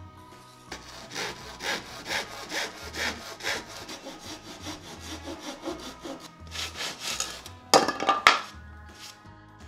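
Hand sawing through the end of a softwood 2x6 with a Japanese-style pull saw, in even rasping strokes about two a second. Near the end a louder, brief crack as the cut finishes and the offcut breaks away.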